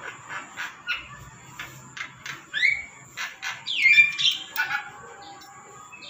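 Black-capped lory calling: a run of short clicking notes, with two louder harsh squawks about halfway through.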